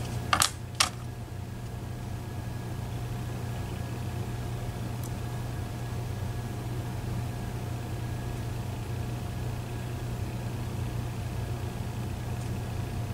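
A few sharp clicks in the first second as small metal lock parts from a disassembled Medeco Biaxial cylinder are handled over a plastic pin tray, then a steady low room hum with faint steady whine tones.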